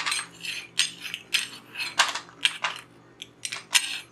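A metal cutter scraping raw shankarpali dough squares off a wooden rolling board onto a plate, in a quick series of short scrapes and clinks.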